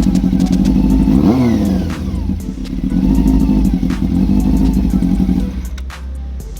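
Honda CB400 motorcycle engine running, with a brief sweep in pitch about a second in; the sound drops away about five and a half seconds in.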